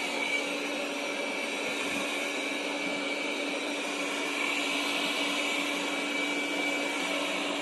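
Roborock S7 MaxV Ultra robot vacuum running as it cleans across a rug: a steady whir of its suction fan with a low hum and a thin, steady high whine.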